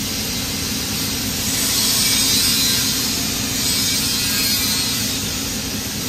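TIG welding arc on a copper-nickel pipe, giving a steady hiss that grows a little brighter and louder for a few seconds in the middle.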